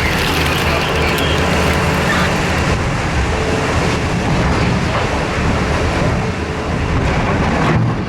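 Liebherr R9350 mining excavator's diesel engine running loud and steady under load while loading overburden, with a dense mechanical din.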